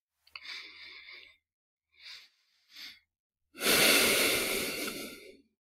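A man breathing close to a microphone: a soft breath in, two short quiet breaths, then a long heavy sigh out starting about three and a half seconds in, the loudest sound here.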